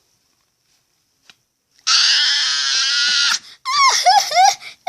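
A high-pitched voice gives one shrill, raspy squeal of about a second and a half, followed by a few short squeaky cries that bend up and down.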